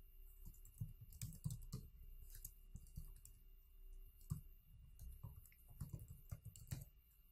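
Faint typing on a computer keyboard: irregular runs of key clicks as text is entered into a form.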